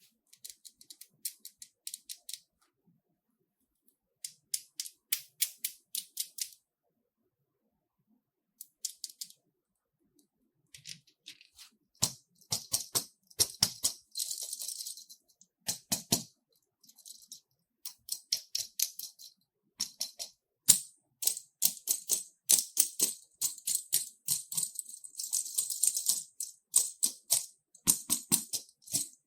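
Crackling, clicking sounds of slime and its mix-ins being handled: short bursts of sharp clicks at first, then a near-continuous, denser crackle from about halfway through, with a few heavier clicks among them.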